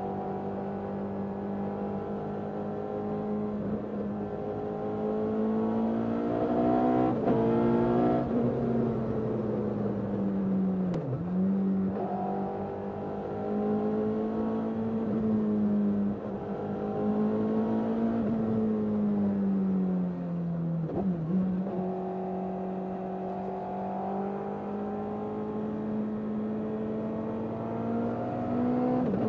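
Suzuki Hayabusa inline-four motorcycle engine in an MK Indy kit car, heard onboard with its intake and exhaust, pulling and easing off on the road. The engine note rises and falls several times, with a few short sharp drops in revs between pulls.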